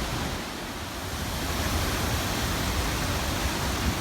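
Water rushing over the Hogenakkal falls on the Kaveri river: a steady, even rushing noise, dipping slightly about half a second in.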